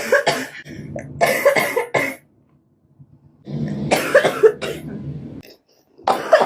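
A young woman coughing in bouts of several coughs each: one bout at the start, another after a pause of over a second, and a third beginning near the end. It is her smoker's cough.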